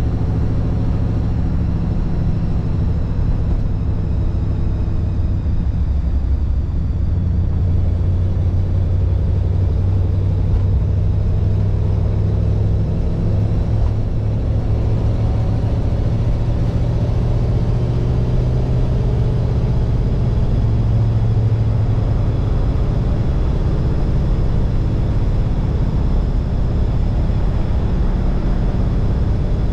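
A 1948 Mercury's flathead V8 running steadily on the move, a low even drone with a faint rise in pitch that eases off about two-thirds of the way through.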